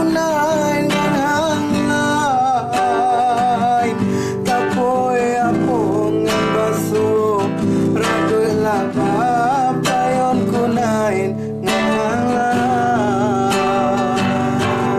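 Acoustic guitar strummed steadily under a singer's voice carrying a wavering, ornamented melody with short breaks between phrases: a Kerinci regional song.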